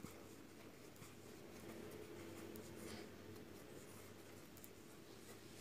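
Faint, soft scratching and rustling of a crochet hook drawing yarn through as a row of chain stitches is worked, over a low steady hum.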